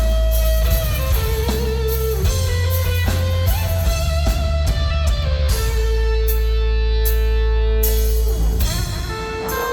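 Loud live rock music: an electric guitar plays long held notes over a deep low part, with the notes changing every couple of seconds.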